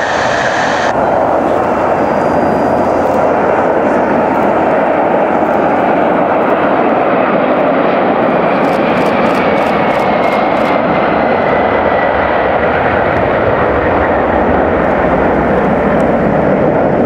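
McDonnell Douglas MD-11 freighter's three jet engines at takeoff power as it climbs out, a loud steady roar. A faint whine drifts slightly down in pitch about halfway through.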